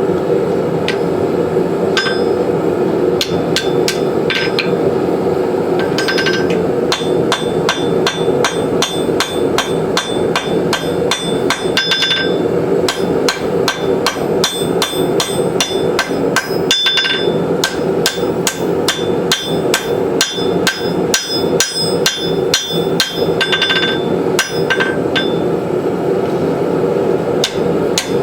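Hand hammer striking hot steel on an anvil, blow after blow several times a second, with a ringing note after the strikes, while forge-welding the folded-over eye of a tomahawk head made from a horse hoof rasp. A steady running noise from the forge sits underneath.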